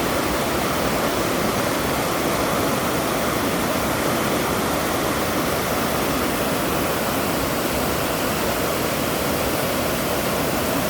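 Rushing water making a steady, even rush without breaks.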